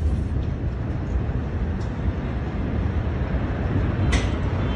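Low, steady rumble from the Beirut port explosion as its cloud rises, with a brief crackle about four seconds in.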